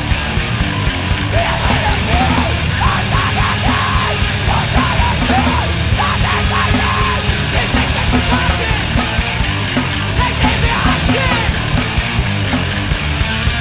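Loud hardcore punk band recording: distorted guitars and pounding drums, with screamed vocals.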